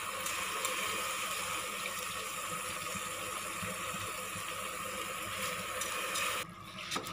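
Steady sizzling of vegetables and spices frying in oil in a pressure cooker as soaked rice is dropped in by hand. The sizzle cuts off suddenly near the end.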